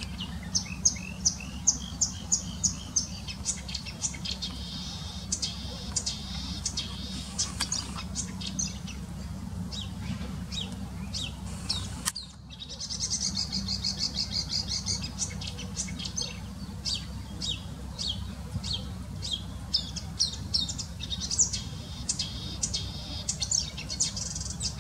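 Marsh warbler singing: a fast, varied, unbroken run of high chattering notes and trills. It breaks off briefly about halfway through, then carries on.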